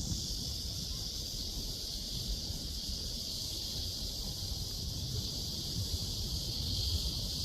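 Steady, high-pitched chorus of summer insects, such as cicadas or grass-dwelling crickets, with a low rumble of wind on the microphone.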